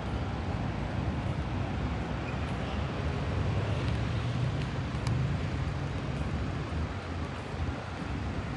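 Steady city traffic noise: a low rumble of passing vehicles on nearby streets.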